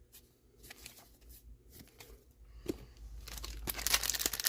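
A few faint clicks of cards being handled, then, about three seconds in, a trading-card booster pack's foil wrapper being torn open and crinkled, growing louder.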